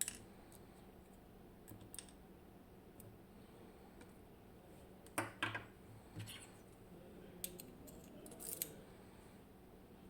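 Small metal clicks and taps from a Medeco M4 lock cylinder's parts being handled as it is taken apart: a handful of short, sharp clicks, the loudest pair about five seconds in.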